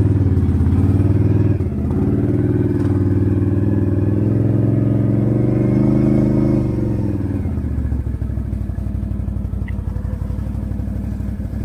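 2021 Can-Am Outlander 650 ATV's V-twin engine running loud through an aftermarket Straightline Performance exhaust, pulling under throttle with a brief dip near the start. About two-thirds through it eases off and settles to a lower, quieter run.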